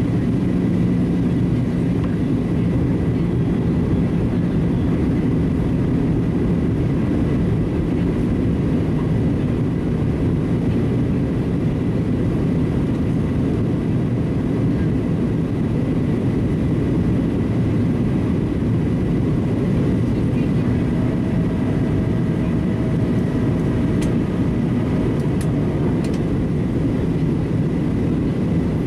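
Inside the cabin of a Boeing 737-700 in descent: the steady rush of airflow and the drone of its CFM56 turbofan engines, heard from a window seat by the wing, with a faint steady whine above.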